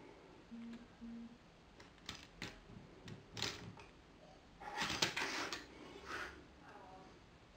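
Light clicks, knocks and rustles of a plastic Lego locomotive being handled and turned on a wooden tabletop, the loudest about five seconds in. Two short low beeps sound near the start.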